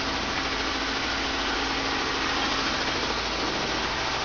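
Robinson R22 helicopter running steadily on its skids, its engine and rotors giving an even rushing noise with a low steady hum underneath.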